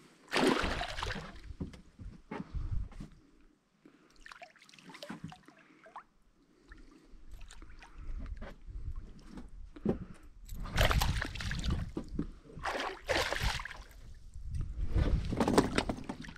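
Water splashing and sloshing around a small boat in several short bursts, the loudest about a second in and again over the last third, over a low rumble.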